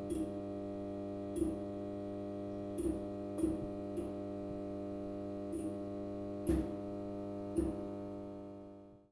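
Fluorescent light fixture buzzing with a steady mains hum rich in overtones and a faint high whine, broken by irregular sharp clicks about once a second. The sound fades out at the very end.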